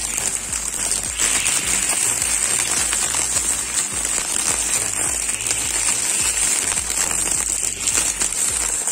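Homemade electric string trimmer, powered by a car AC blower motor, spinning its nylon line through weeds and dry leaves: a steady running sound with a constant crackle of leaves and debris being struck and thrown. Background music plays under it.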